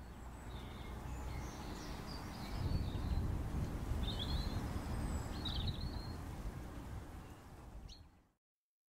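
Outdoor ambience: a few birds chirping over a steady low rumble, which cuts off suddenly near the end.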